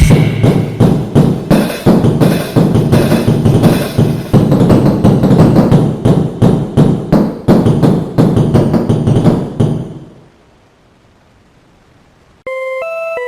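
Electronic music: a drum-heavy track with a steady beat fades out about ten seconds in. After a short quiet gap, a new track starts near the end with a plinking melody of clear, stepping notes.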